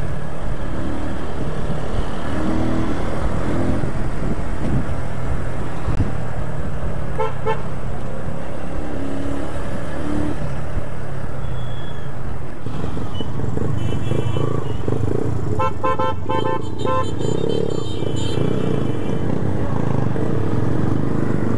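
Motorcycle riding in traffic, its engine and wind noise making a steady rumble. Vehicle horns beep briefly about seven seconds in and several more times in the second half.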